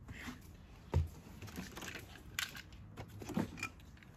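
Small handling noises: a thump about a second in, then a few light clicks and knocks as small toys are picked up and set down, with faint rustling.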